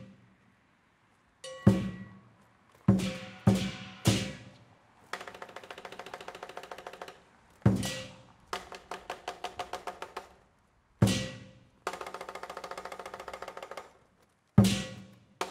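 Chinese lion dance percussion, drum and cymbals: single heavy strikes that ring and die away, alternating with three stretches of fast, even rolled strokes.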